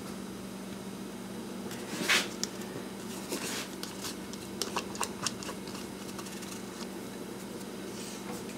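Steady low hum of kitchen room noise with a few light clicks and knocks of handling at the stove, the clearest about two seconds in. No sizzling from the frying pan: the gas burner under it is not lit.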